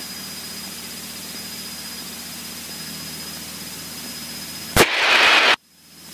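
Steady cockpit drone of a Cessna 152 in cruise, heard through the headset intercom, with a faint high whine over it. Near the end a sudden loud burst of hiss lasts under a second and cuts off abruptly.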